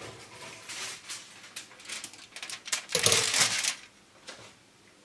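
Aluminium foil crinkling and scattered clicks as a hot, foil-covered cake tin is handled, with a louder knock and rustle about three seconds in as the tin is set down on a wire rack.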